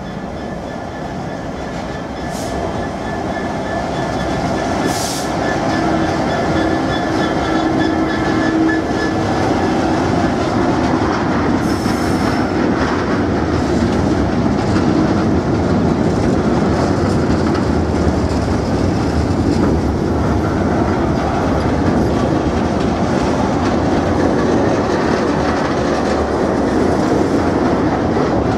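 A long freight train of empty steel box wagons rolling past close by behind a Class 66 diesel locomotive: a steady, loud rumble and clatter of wheels on the rails. A thin wheel squeal runs through roughly the first ten seconds.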